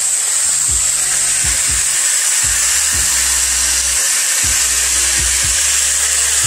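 Steady sizzle of chopped vegetables frying in a skillet, with music and a repeating bass line playing underneath.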